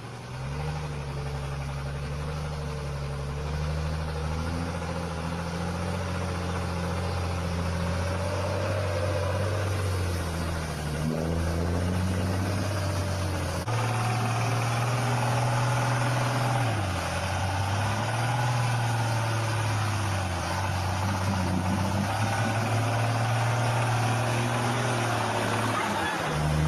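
Heavy diesel engine of an old Shaktiman army truck labouring under load, its pitch rising and falling with the throttle and gear changes. The engine note changes abruptly about halfway through.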